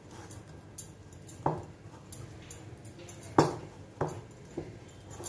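Hands kneading sticky jaggery-and-flour dough in a steel pan, with a few knocks against the pan's metal, the loudest about three and a half seconds in.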